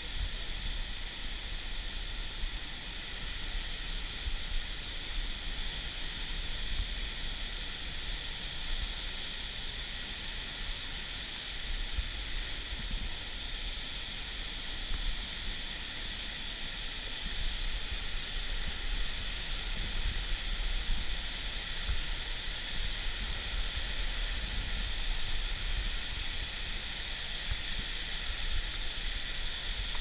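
Large waterfall close by: a steady, unbroken roar of falling water, with irregular low thumps underneath.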